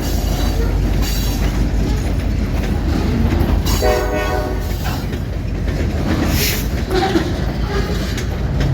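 Freight cars rolling past on the rails with a steady low rumble of wheels. About four seconds in, a brief pitched tone sounds over it.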